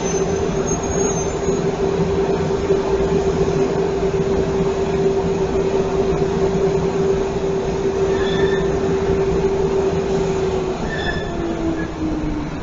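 Tram-track sweeper truck running its sweeping and suction gear: a loud, steady mechanical drone with a held hum that drops in pitch near the end.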